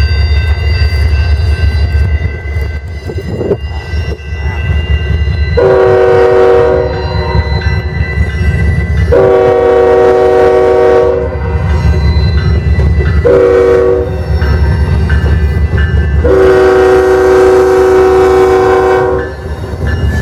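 Diesel locomotive's multi-chime air horn sounding the grade-crossing pattern, long, long, short, long, with the last blast the longest. The locomotive and train rumble underneath it as they pass close by.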